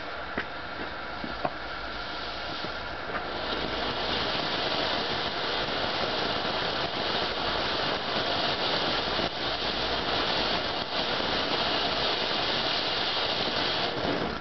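Stjernetosset firework fountain burning and spraying sparks: a steady, hissing rush with a few crackles. It grows louder about three and a half seconds in as the fountain gets going and drops away just before the end.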